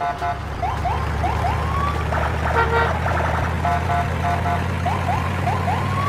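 Electronic police-siren sound effect: short rising whoops alternating with bursts of rapid beeping tones, over a steady low engine drone.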